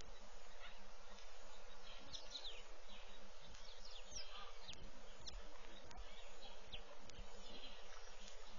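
Bush ambience: a steady insect hiss with many short, quick bird chirps scattered through it.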